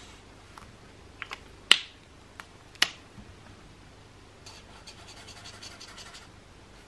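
Alcohol marker nib scratching on paper in quick back-and-forth strokes during the second half. Before that come several sharp plastic clicks from handling the marker, two of them much louder, a little over a second apart.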